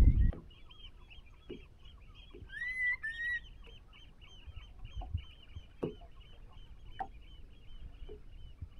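Birds calling: a quick, steady run of short high notes, about five a second, with two louder rising calls a little after two and a half seconds in, and a few faint knocks. A loud rushing noise cuts off in the first moment.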